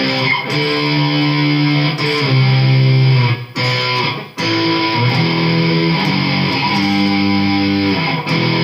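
Chibson Les Paul copy electric guitar on both pickups, playing strummed chords that ring for a moment before each change. The sound drops out briefly twice near the middle.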